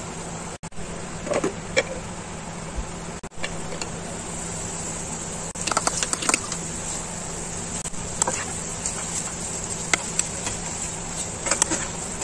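Spatula stirring and scraping potatoes in a nonstick frying pan, a few short scrapes and taps at intervals over a steady frying hiss.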